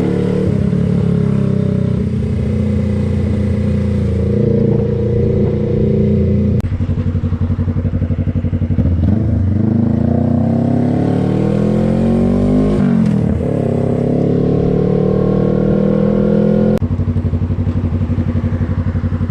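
Suzuki GSX250R's parallel-twin engine running while ridden. About halfway through, the revs climb steadily for several seconds, then drop sharply at a gear change. Near the end the engine falls to a lower, pulsing note.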